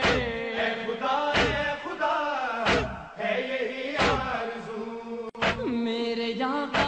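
A voice chanting an Urdu devotional poem in long, melodic lines over a deep, regular thump that falls about every second and a third.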